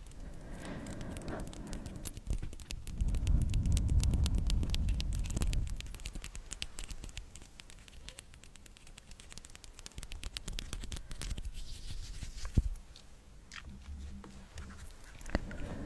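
Close-miked ASMR trigger sounds: a dense run of fine crackling clicks, with a louder low rushing swell from about two and a half to five and a half seconds in.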